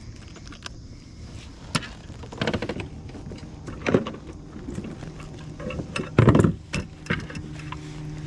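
Handling noises in a plastic fishing kayak as a landed bass on a lip grip is laid on a measuring board: scattered clicks, rattles and knocks, the loudest a thump about six seconds in.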